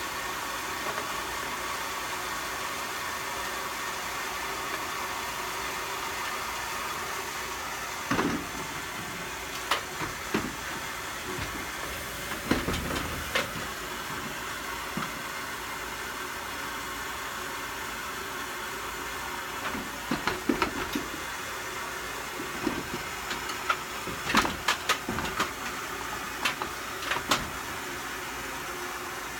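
Steady hiss of water running through a hose into a van's water tank, with clunks and knocks from about eight seconds in as a Husky portable air compressor is shifted and set down on the van's wooden cargo floor.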